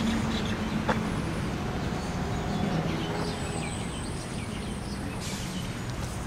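Steady low engine hum over outdoor background noise, with a single sharp knock about a second in.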